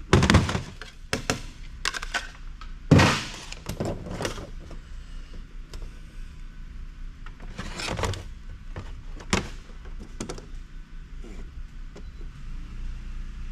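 Scattered knocks and clicks as a wrist watch winder's housing is handled and pried at to find a release tab, the loudest about three seconds in.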